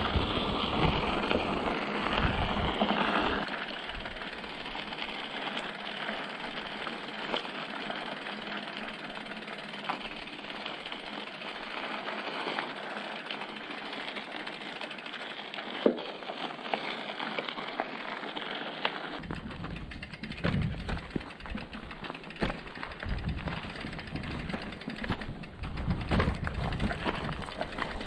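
Mountain bike rolling along a gravel track: a steady crunch and rattle from the tyres and frame. Wind buffets the microphone, strongest in the first few seconds and again through the last several seconds.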